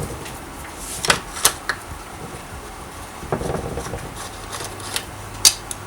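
A handful of sharp clicks and light taps at irregular spacing, from the parts and hand tools of a chainsaw being dismantled on the bench.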